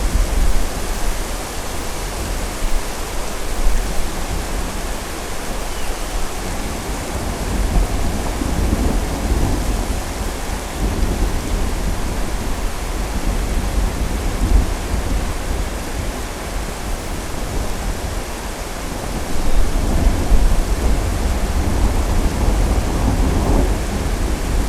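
Thunderstorm with steady rain and low thunder rumbling beneath it. The thunder swells twice, about a third of the way in and again near the end.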